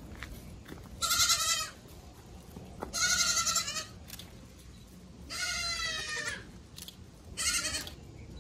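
Young goats bleating: four high, wavering bleats, each about a second long and roughly two seconds apart.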